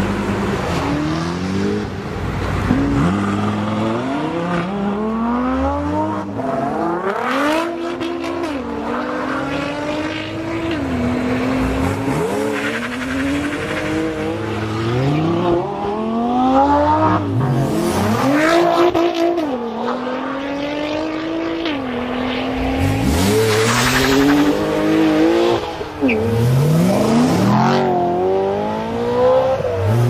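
Performance car engines accelerating hard, one run after another. Each time the pitch climbs and then drops sharply at an upshift, before climbing again.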